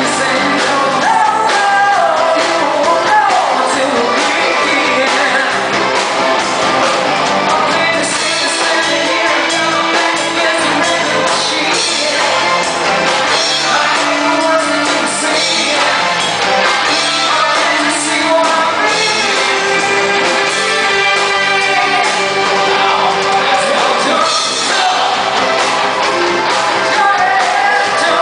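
Live rock band playing: electric guitar, bass guitar and drums behind a lead singer on a microphone, heard as room sound.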